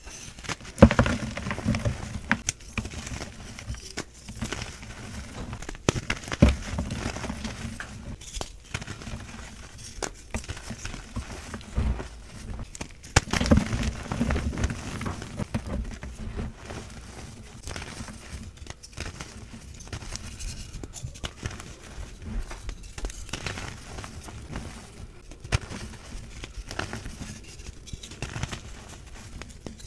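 Hands crushing blocks of reformed gym chalk: the pressed chalk cracks and crumbles into powder with an irregular run of crunching and crackling. The sharpest snaps come about a second in, around six seconds and around thirteen seconds.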